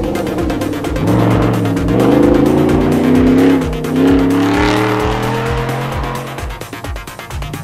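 Off-road rally car's engine revving hard as it passes and accelerates away on a dirt stage. The pitch climbs through the gears and the sound fades near the end. Background music with a steady beat plays underneath.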